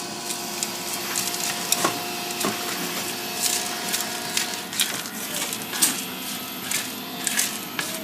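Stray beads of hardened solder being pushed and scraped across the work surface, with irregular clicks and scrapes as they knock and slide about.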